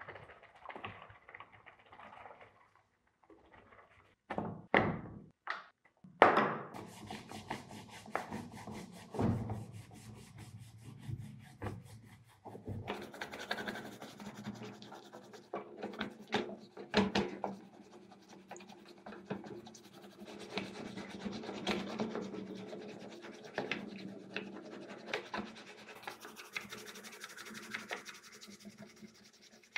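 A sponge scrubbing the black housing of an old Black & Decker drill in soapy water: irregular wet rubbing and scratching, with a few sharp knocks of the part against the tub about five to seven seconds in and lighter clicks throughout.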